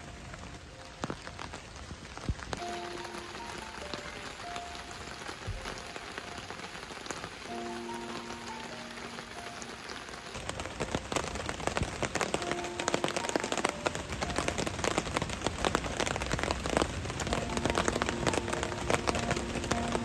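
Steady rain, a dense noise of many separate drops striking, growing louder and heavier about halfway through. Soft background music plays underneath.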